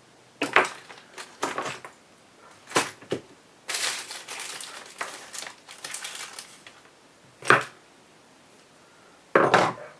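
Hands moving and setting down small parts and tools: several sharp clicks and knocks with a stretch of rustling and crinkling in the middle.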